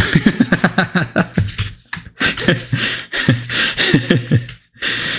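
A man's voice making rapid non-word vocal sounds in quick pulses, several a second, with short breaks about two and four and a half seconds in.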